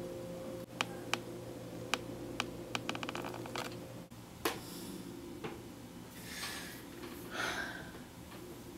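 Plastic water bottle being handled: scattered sharp clicks and a quick run of crinkling clicks in the first half, over a steady low hum. Two soft hissing sounds follow near the end.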